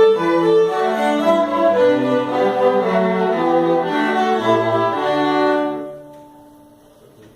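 String quartet playing a quick passage of short bowed notes on violins and cello. The playing stops about six seconds in and the sound dies away in the room.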